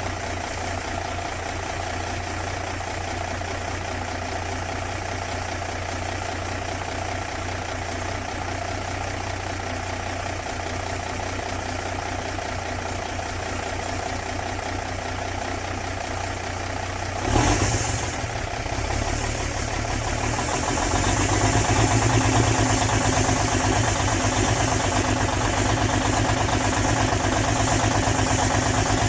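Peterbilt semi tractor's diesel engine idling steadily. About 17 seconds in there is a sudden short burst of sound, and from about 20 seconds on the engine runs louder.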